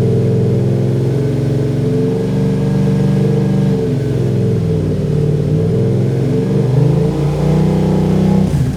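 2022 Yamaha R7's CP2 parallel-twin engine running through a prototype Y-pipe exhaust with a short and a long can, held at light throttle, the revs rising and falling a few times in the middle and dropping back sharply near the end.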